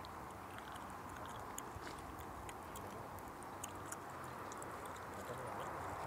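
Faint, steady outdoor background hiss with scattered light clicks and ticks.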